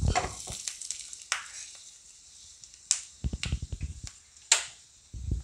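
Dried red chillies and mustard seeds frying in hot sunflower oil in a small iron tempering pan on a gas flame, sizzling with scattered sharp pops and crackles. A few knocks of the pan about three seconds in.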